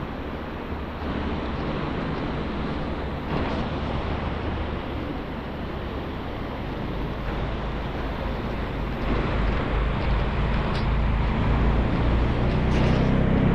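Steady rush of a fast white-water mountain river. Over the last couple of seconds a small utility vehicle's engine comes up from behind, growing louder.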